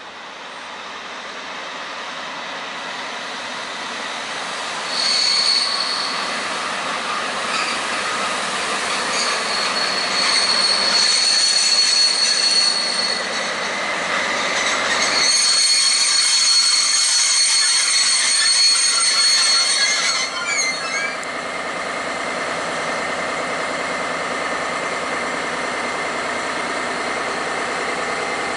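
DB Class 218 diesel locomotive and its passenger coaches rolling in and braking to a stop, with high-pitched brake and wheel squeal coming and going for about fifteen seconds. Once the squeal ends, the locomotive's diesel engine idles steadily.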